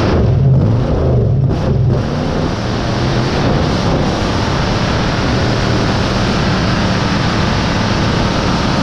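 Monster truck engine running hard as the truck drives, heard from a GoPro mounted on the truck's side beside the front wheel, with heavy wind noise on the microphone. Loud and steady throughout.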